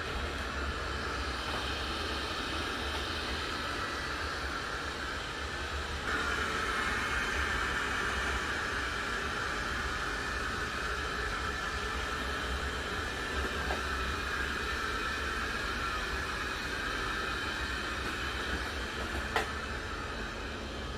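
iNIC i9 robot vacuum running with a steady whirring hiss that steps up louder about six seconds in. There is a short click near the end.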